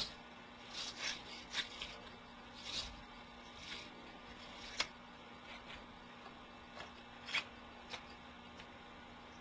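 Faint, intermittent scraping of 220-grit sandpaper as a pinewood derby wheel hub is twisted back and forth in the coned end of a hub tool, coning the hub. One sharper click comes about five seconds in.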